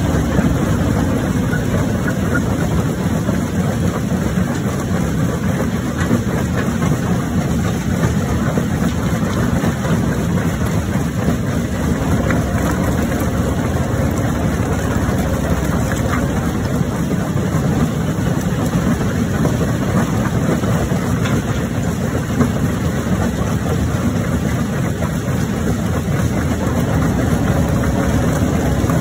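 Jaw rock crusher running under load, a steady heavy mechanical rumble with a few faint cracks as large stone slabs are broken between its jaws.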